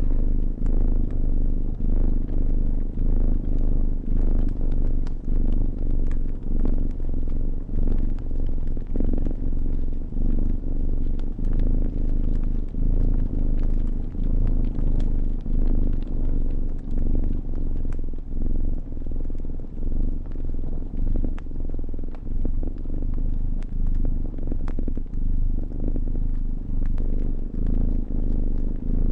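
Cat purring close and steadily, swelling and dipping about once a second with each breath, with the small crackles and pops of a fire scattered through it.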